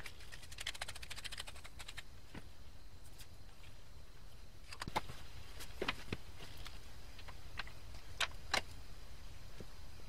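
Hands handling a metal pump barrel and small parts on a workbench: a quick run of fine clicks near the start, then scattered sharper clicks and taps in the second half, over a low steady hum.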